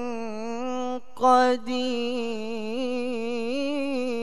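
A teenage boy's voice reciting the Qur'an in melodic tilawah style, drawing out a single long note with wavering ornamental turns, part of the phrase 'wa huwa ʿalā kulli shay'in qadīr'. The line breaks off briefly about a second in and resumes more loudly.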